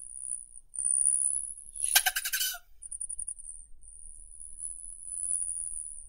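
Rufous hummingbird giving a harsh, rattling chatter call about two seconds in, over a thin, steady, very high-pitched buzz that breaks off briefly now and then.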